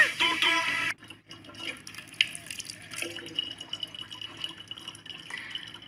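Thin stream of tap water running steadily into the neck of a plastic water jug, with small drips and ticks. A second of music cuts off suddenly about a second in.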